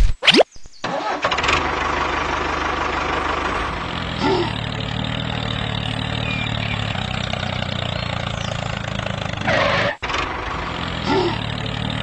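Tractor engine starting and then running at a steady, even pace, opened by a short rising whoosh; the sound cuts out for an instant near ten seconds in and carries on.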